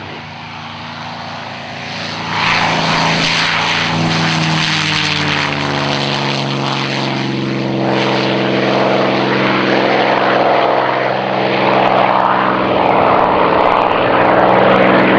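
P-51D Mustang's Packard Merlin V-12 engine running at takeoff power as the fighter rolls and lifts off, its propeller driving a loud, steady engine note. The sound jumps in loudness about two seconds in and stays loud through the climb-out.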